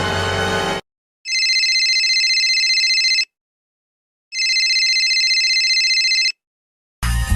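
A telephone ringing twice, each ring a steady high trilling tone lasting about two seconds, with about a second of silence between. The tail of a music clip ends just before it, and another music clip with guitar starts near the end.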